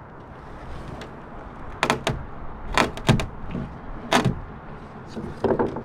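Half a dozen sharp, irregular knocks and creaks from hands-on work on a boat's fibreglass-covered wooden cross-beam.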